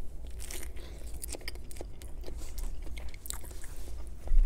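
Close-miked biting into and chewing a bread sandwich, many short clicks as the mouth works the food. A brief low thump near the end.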